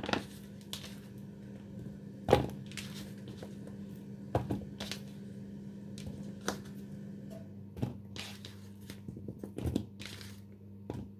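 Scattered light knocks and clicks of food and kitchenware being handled during cooking, over a steady low hum.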